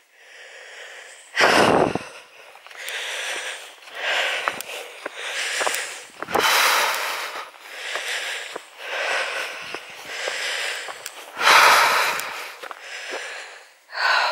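A hiker's heavy breathing while climbing a steep path: repeated puffing breaths in and out, about one a second, with two louder breaths, one near the start and one near the end.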